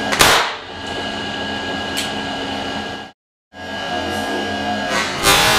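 A homemade HHO (hydrogen-oxygen) generator rig running with a steady hum and whine. A sharp bang comes just after the start, and a louder bang near the end with a long decay: the gas is ignited and the flame flashes back through the hose and check valve.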